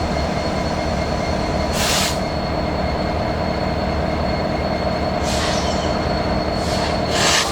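Freight train cars rolling past with a steady rumble and a thin, steady high-pitched wheel squeal. Short bursts of noise come about two, five and seven seconds in.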